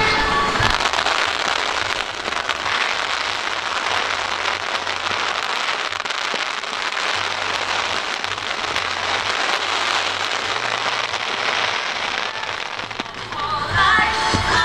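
Fireworks bursting overhead, making a dense, continuous crackle of many small sparks. Music with singing comes back in near the end.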